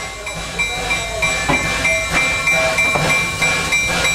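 Steam locomotive standing under steam, hissing steadily as steam is let into its cylinders, with a steady high-pitched tone over the hiss.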